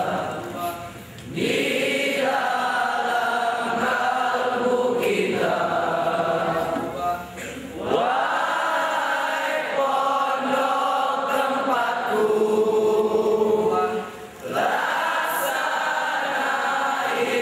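A group of young men singing a song together in long held notes, phrase by phrase, with a short pause for breath about every six seconds.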